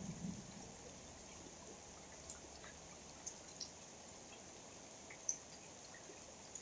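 Faint, steady rain hiss with a few scattered drops ticking, the clearest a little after five seconds in.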